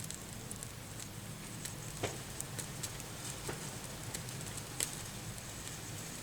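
Kitchen cooking sounds: scattered crackles and sharp clicks, the loudest about two seconds in and again near five seconds, over a steady low hum.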